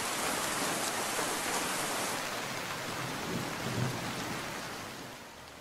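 Steady rain falling, with a brief low rumble about three and a half seconds in. The rain fades toward the end.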